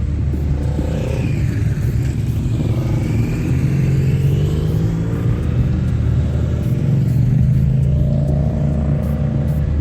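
Motorcycle engine running under way: a steady low drone whose pitch rises and falls a little with the throttle.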